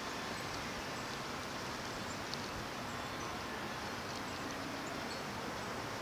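Steady hiss of wind during a snowstorm, with a few faint, brief high sounds over it.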